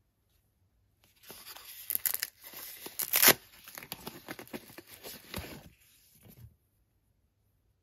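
Plastic packaging pouch being torn open and crinkled by hand for several seconds, with one loud sharp rip about three seconds in. The sound stops about six and a half seconds in.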